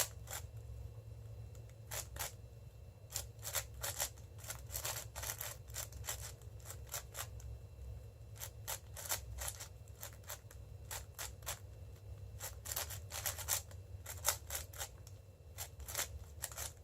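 A 6x6 speed cube (Cubicle Red M) being turned fast in a speedsolve. The plastic layers click and clack in quick, irregular flurries, over a faint low hum.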